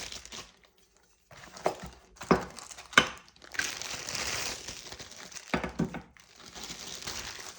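Plastic packaging bags crinkling as the bagged door handle parts are handled and unwrapped, with a few sharp clicks and knocks of the metal hardware being set down.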